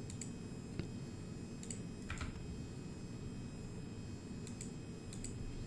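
A handful of faint, scattered clicks from a computer keyboard and mouse, over a low steady background hum.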